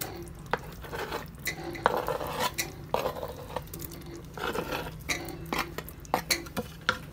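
A metal spoon scraping and knocking against a wooden chopping board and the rim of a pressure cooker as paneer cubes are pushed off the board into the pot. The clicks and knocks come irregularly.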